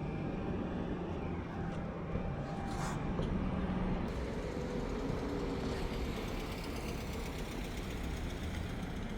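A steady low engine rumble with a faint pitch sliding through it midway.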